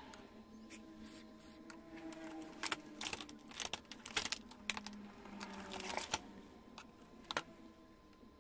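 Light, irregular clicks and taps from hand tools and multimeter test probes being handled on an LED TV's power-supply circuit board. The clicks bunch together in the middle, with one sharper click near the end.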